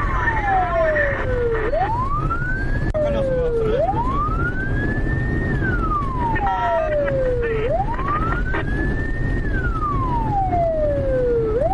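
Police car siren wailing, its pitch climbing, holding high, then sliding back down in slow cycles of about four seconds each. Underneath runs the steady rumble of cars on the road.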